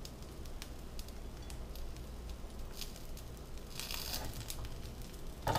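Butter crackling in a frying pan under a grilled flatbread sandwich, with scattered small crackles throughout. A spatula moves in the pan about four seconds in, and there is a short louder bump near the end.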